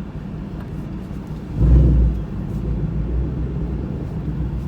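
Straight-piped 5.0 V8 exhaust rumbling steadily, with a short, loud burst of throttle about one and a half seconds in, after which it runs a little louder.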